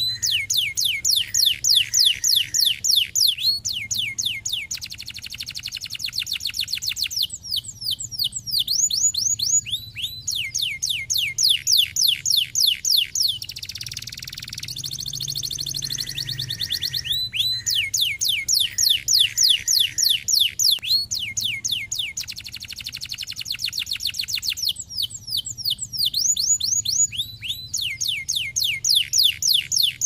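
Domestic canary singing: long phrases of rapid, repeated downward-sweeping whistled notes, about five or six a second, alternating with fast buzzy trills and broken by brief pauses.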